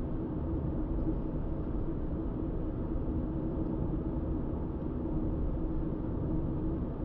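Car cruising steadily at road speed: a constant low rumble of tyres and engine with a faint steady hum running through it.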